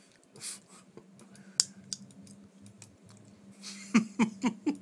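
Scattered clicks and taps on a laptop's keyboard and buttons, with one sharper click about a second and a half in. Near the end comes a quick run of louder sharp strokes, about four a second.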